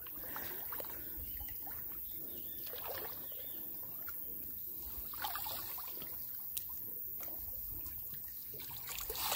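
Floodwater trickling and sloshing softly as people wade through it waist-deep, with a few faint swells of splashing.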